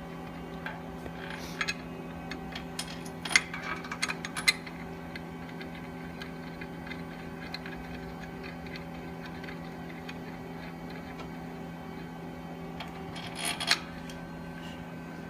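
Light metallic clicks and clinks of 1/2-20 bolts being handled and threaded finger-tight by hand, in scattered clusters, loudest about three to four and a half seconds in and again near the end, over a steady low hum.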